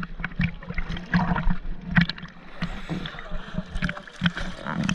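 Choppy sea water splashing and slapping irregularly against an action camera held at the surface by a swimmer, with water gurgling around it. A steady low hum runs underneath.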